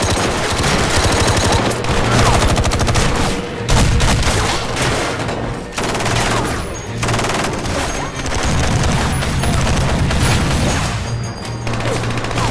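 Sustained automatic rifle fire from several guns at once, rapid overlapping shots, with a louder impact about four seconds in. An action-film score plays underneath.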